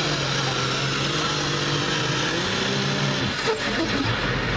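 Limited prostock pulling tractor's turbocharged diesel engine running flat out under load as it drags a weight-transfer sled, a loud steady drone. Near the end a high whine slides down in pitch.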